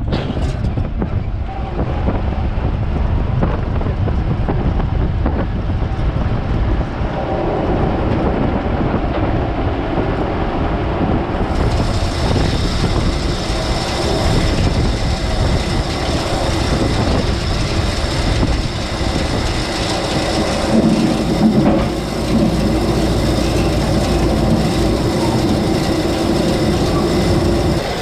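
Tractor running steadily under way while pulling a fertilizer spreader over bumpy pasture, a deep engine rumble with continuous rattling and clatter. The sound turns brighter and harsher about a third of the way through.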